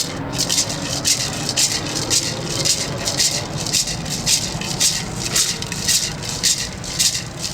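Hand rattle shaken in a steady beat, about two shakes a second, keeping time to open a song.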